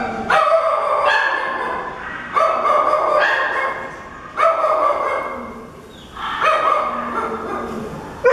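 Shelter dogs barking repeatedly in a kennel. About seven sharp barks, each ringing on for a second or so off the hard kennel walls.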